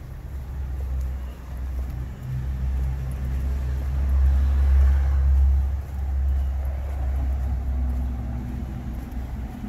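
A motor vehicle's engine rumbling close by, swelling to its loudest about halfway through and then easing off.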